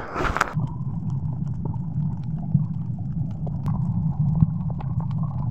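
A brief splash as the camera goes under the sea surface, then the muffled sound of being underwater: a steady low rumble with many small, scattered clicks.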